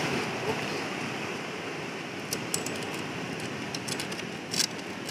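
Knife blade clicking and scraping against rock as a cluster of gooseneck barnacles is pried loose: a few sharp clicks in the second half, the loudest near the end, over a steady hiss of surf.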